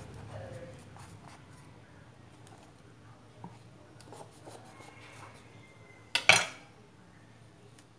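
Kitchen knife cutting a bitter melon on a wooden cutting board: quiet scattered knocks and scrapes of the blade against the board, then a sharp clatter a little after six seconds as the knife is set down, the loudest sound.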